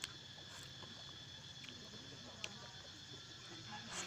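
Soft mouth sounds of ripe mango being bitten and eaten: a few short wet clicks and smacks, about a second apart, over a steady faint high insect drone.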